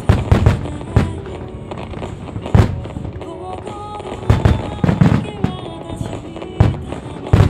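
Starmine firework shells bursting in rapid, irregular succession, about ten sharp booms, over music played through loudspeakers.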